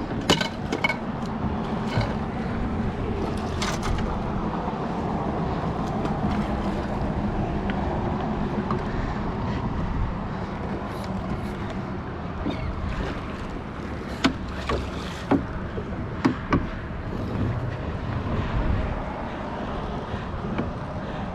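Steady rush of wind and water around a small fishing boat with a faint low hum, broken by a handful of sharp knocks and clatters as a long-handled landing net is handled against the boat while landing a hooked fish; a cluster of knocks comes about two-thirds of the way through.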